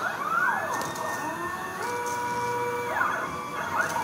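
Stepper motors of a Sherline CNC mill driving the axes under G-code control: a whine that glides up to a steady pitch as the motor accelerates, shifts to a higher set of pitches about two seconds in, glides down as it slows near three seconds, and rises again near the end.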